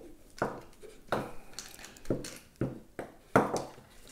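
About five sharp knocks and clacks of hard plastic and metal parts being handled, each with a short ring, the loudest about three and a half seconds in, as a motorcycle's indicators are worked out of the old tail tidy.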